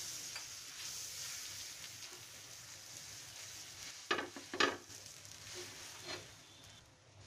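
Buttered pav buns sizzling on a hot tawa, a steady hiss that slowly dies down. About four seconds in there are two short, louder scuffs as the bread is pressed and shifted on the pan, and a smaller one a little later.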